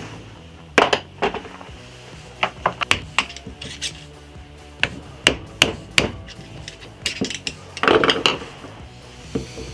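Flat-blade screwdriver clicking and knocking against the metal bearing eye of a WP PDS rear shock and the wooden workbench as a bearing spacer is pried out: irregular sharp knocks, with a quick cluster about eight seconds in.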